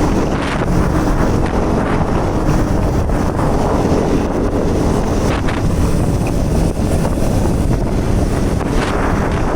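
Heavy wind buffeting the microphone while riding a KTM 200 Duke, its single-cylinder engine running underneath.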